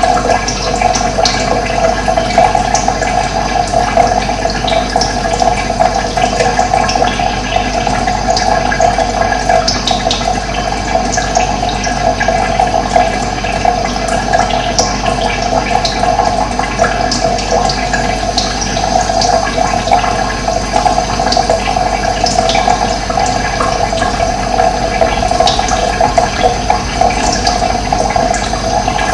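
Running water flowing steadily, with short high bird chirps scattered throughout.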